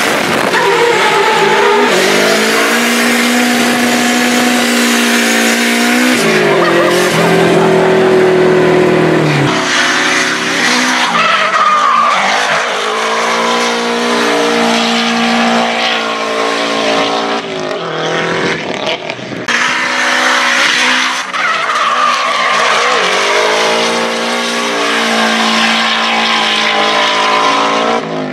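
Nissan S13's turbocharged SR20DET four-cylinder engine revving up and down repeatedly while drifting, with tyres squealing as the car slides sideways.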